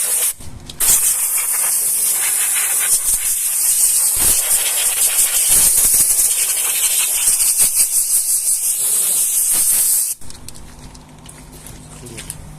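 Loud, steady hiss of gas blowing through a 1965 Orsk refrigerator's cooling lines during a purge of the system. It drops out briefly just after the start and cuts off about ten seconds in, leaving a quieter low hum.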